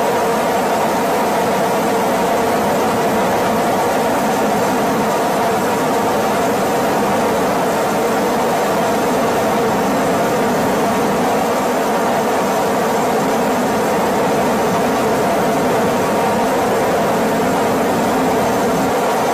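Steady, unchanging engine drone of an aircraft, with no breaks or changes in level.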